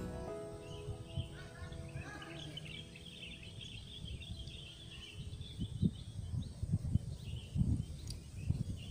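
Small birds chirping and twittering for most of the time, with low gusts of wind buffeting the microphone in the second half. The tail of some background music fades out in the first few seconds.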